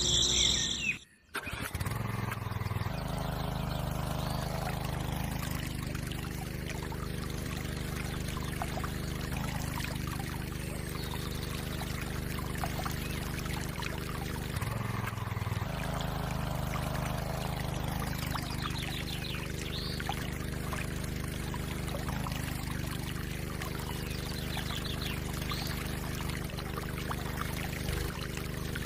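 Miniature water pump's small motor running with a steady hum while water pours and trickles from it. The hum breaks off briefly about halfway and then resumes.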